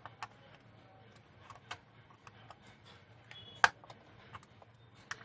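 Scattered small clicks and taps from a Sony Handycam camcorder's casing part being worked loose by hand, with one sharper click about three and a half seconds in.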